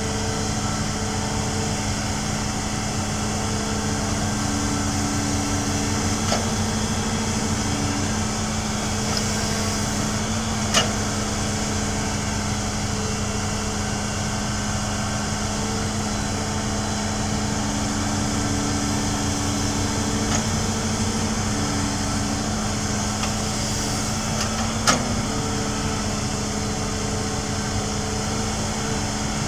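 Hitachi hydraulic excavator running steadily while digging and loading, its engine drone overlaid by hydraulic whine that comes and goes every few seconds as the controls are worked. Two short sharp knocks ring out, about 11 and 25 seconds in.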